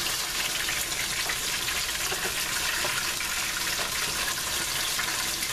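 Firm tofu frying in a deep layer of oil in a stainless steel pan: a steady sizzle, with light scrapes as a spatula moves the pieces. The oil is too deep, which the cook blames for the tofu falling apart.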